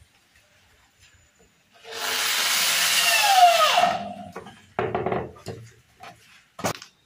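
Corded electric hand drill boring into the wooden frame for about two seconds, its whine falling in pitch as it slows and stops. A few knocks and a sharp click follow.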